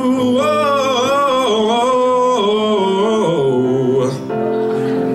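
A man sings a long held note with vibrato, then carries it through a run of changing pitches. The voice stops about four seconds in, and the instrumental accompaniment carries on alone.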